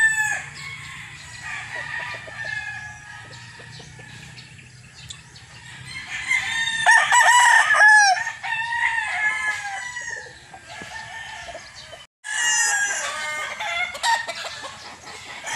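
Gamecocks crowing and clucking, several calls overlapping, with the loudest crow about seven seconds in. The sound cuts out for a moment about 12 seconds in, then more crowing follows.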